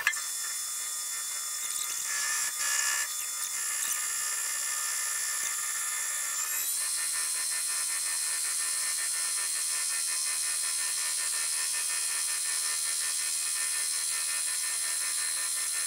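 Precision Matthews 1440TL metal lathe running under its VFD on a carbide facing cut in 4140 steel: a steady high whine with cutting noise that steps up slightly in pitch about six and a half seconds in, as the spindle speed is changed.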